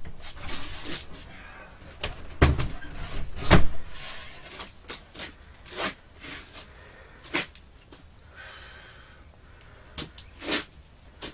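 Scattered knocks and clicks, as of objects being handled, with two heavier thumps about two and a half and three and a half seconds in.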